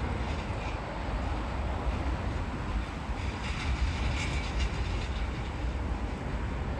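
Jet airliner engines at an airport: a steady low rumble and roar with no clear rise or fall.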